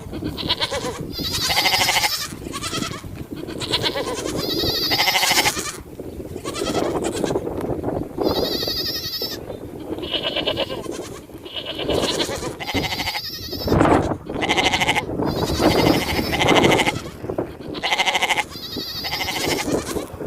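Sheep bleating over and over, one wavering call about a second long after another, some overlapping, over a steady low background of the flock.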